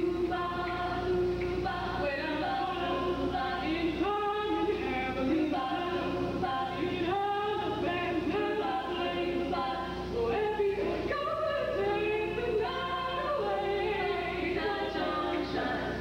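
Show choir of mixed voices singing in harmony, over a steady low electrical hum.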